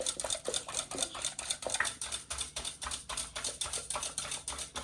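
Eggs being beaten in a bowl with a hand utensil: a fast, even clicking of metal against the bowl, about six or seven strokes a second.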